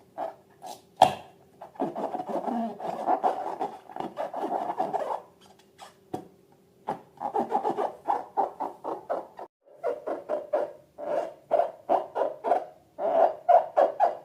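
Rubber balloons being rubbed and squeezed, squeaking: a dense run of squeaks, a short pause, then quick rhythmic squeaks about four or five a second.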